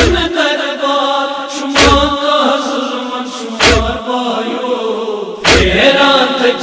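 Kashmiri noha: a male reciter singing a mournful lament over a microphone while a group of men chant along with him. A heavy unison thud lands about every two seconds, the group's chest-beating (matam) keeping time.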